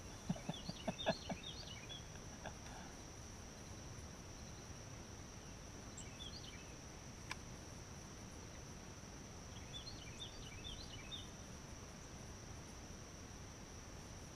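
Steady, high-pitched chorus of insects, faint, with a bird calling in short runs of chirps three times. A few soft knocks come in the first two seconds.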